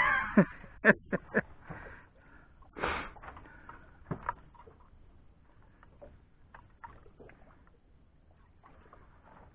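Small waves lapping against the hull of a drifting boat, with a few light knocks in the first second or so and again a little after four seconds, and a short rush of noise about three seconds in; faint after that.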